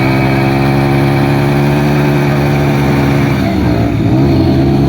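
Motorcycle engine running loudly at a steady speed, with its pitch dipping and wavering briefly about three and a half seconds in before settling again.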